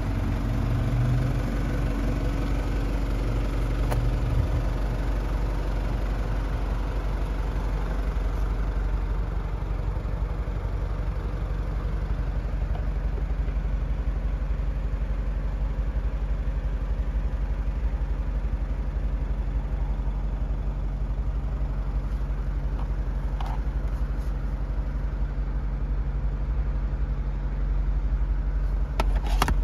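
Nissan Elgrand's ZD30DD 3.0-litre diesel engine idling steadily, with a few light clicks near the end.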